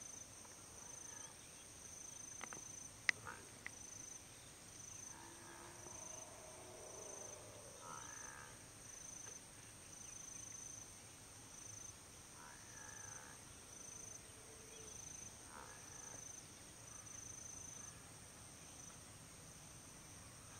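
Faint insect chirping: a high pulse repeating evenly about once a second over a steady high hiss. A single sharp click sounds about three seconds in.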